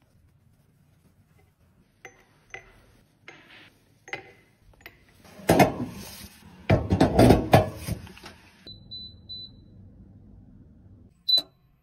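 Glass dish clattering and knocking as it is set into the metal wire rack of a sterilizing cabinet, after a few light clicks. Then come a few short high electronic beeps, and near the end a button press with a beep from the cabinet's control panel.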